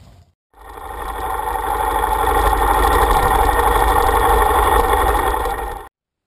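Harley-Davidson V-twin engine running, with the rocker-shaft top-end tick of a motor that has no rocker lockers fitted, which the owner puts down to the rocker shafts turning and hitting their bolts. It fades in about half a second in and cuts off suddenly near the end.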